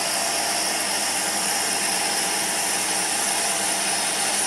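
Emco PC50 CNC lathe running steadily while its tool feeds along a spinning brass rod, taking a light turning cut. An even mechanical whine with several held tones, unchanging throughout.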